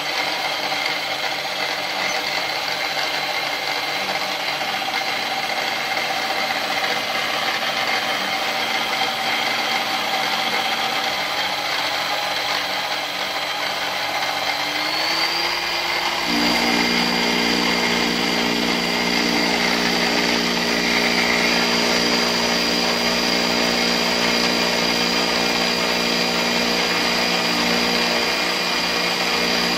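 An Arboga machine converted to CNC runs during a test cut in aluminium, with a steady mechanical whine. About fifteen seconds in the pitch rises and a lower, pulsing hum joins.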